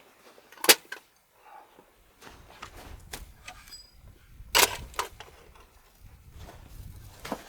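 Several sharp knocks, the loudest under a second in and about four and a half seconds in, with another near the end, over a low rumble.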